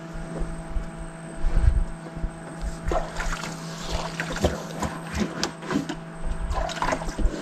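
Steady low hum of a small boat engine running at idle, with scattered short knocks and clicks from handling the rod and reel, most between about three and seven seconds in.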